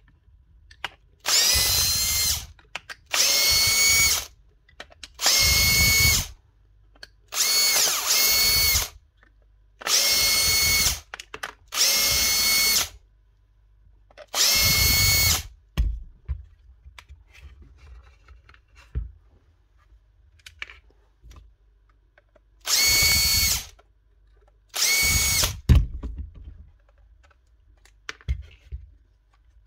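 Small electric drill or driver running in nine short bursts of about a second each, with a steady whine in each burst; the bursts come in a run of seven, then a pause of about eight seconds, then two more.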